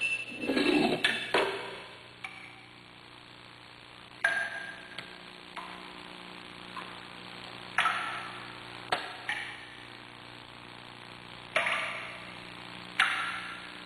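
Sharp metallic clanks and taps at irregular intervals, each ringing briefly, over a steady low hum. A louder low rumbling knock comes in the first second and a half, and the strongest clanks land about four, eight, eleven and a half and thirteen seconds in.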